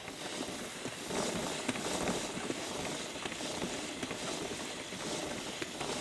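Aerosol can of chain lube spraying in a steady hiss onto a motorcycle's O-ring drive chain as the chain is turned through a revolution, with faint clicks from the chain links.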